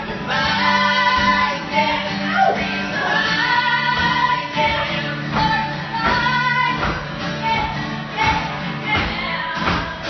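A song with cello and fiddle accompaniment: a singing voice carries a slow melody over a held low cello line.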